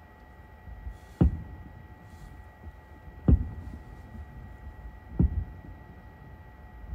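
Distant fireworks shells bursting: three deep booms about two seconds apart, each followed by a short rolling rumble.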